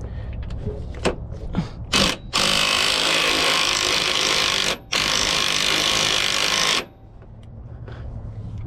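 Power tool running in two long bursts with a brief pause between, loud and even, while parts are being taken off a truck. A few light clicks and knocks come before it.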